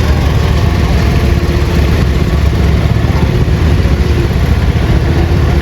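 Loud, steady running of a pulling tractor's engine in a lightweight-division tractor pull.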